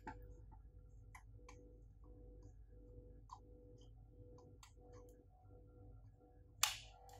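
Soldering on a circuit board: faint scattered ticks and clicks of the iron tip and solder wire against the component pins over a faint steady hum, with a sharper click near the end.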